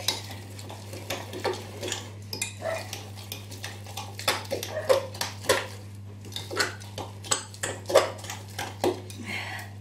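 A spoon stirring a thick banana bread mixture in a glass mixing bowl, clinking and scraping against the glass in irregular strokes, about two or three a second.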